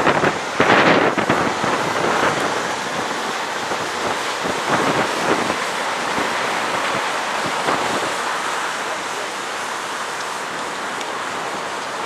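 Blizzard wind buffeting the microphone, a steady rushing noise with the loudest gusts in the first second or so.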